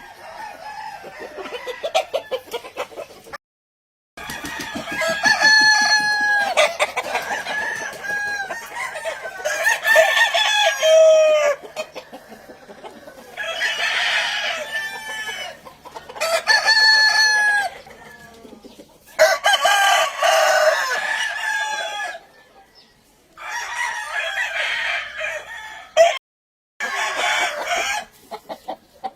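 Gamefowl roosters crowing one after another, several long crows in a row, with clucking in between. The sound drops to dead silence twice for a moment, where the footage is cut.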